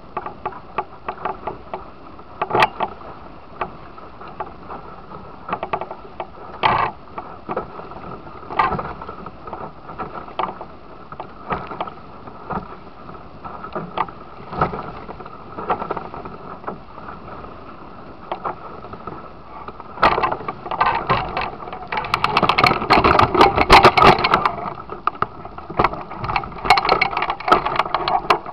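Water rushing and slapping against the hull of a Musto Skiff sailing dinghy under way through choppy water, with frequent sharp slaps of waves. Near the end the splashing gets louder and busier for several seconds.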